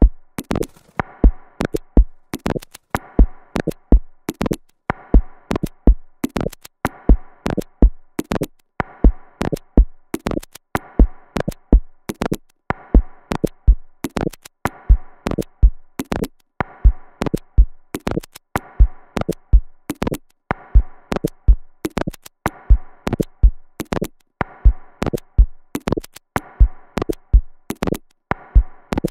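Electronic music: a steady drum-machine beat of sharp clicking hits over low kicks, with a short synthesizer chord recurring about every two seconds. The track stops abruptly at the very end.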